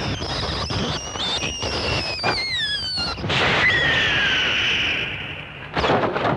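Film soundtrack effects for a fight: high, thin shrieks that slide downward in pitch, layered over a loud hiss, with a few sharp knocks or thuds near the end.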